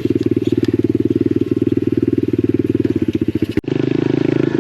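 Pit bike's Lifan 125 single-cylinder four-stroke engine running steadily with a fast, even firing pulse. The sound cuts out for an instant about three and a half seconds in, then carries on.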